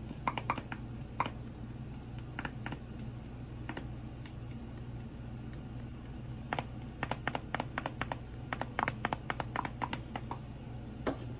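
Black pepper being shaken from its container onto raw beef neck bones: short bursts of light clicks and taps with pauses between, busiest in the second half.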